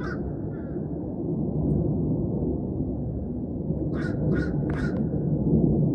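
A steady low rumble throughout, with three short, harsh bird calls in quick succession about four seconds in.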